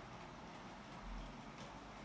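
Model train of a steam locomotive and loaded open freight wagons rolling along the track, a faint steady rolling noise with a few light ticks from the wheels.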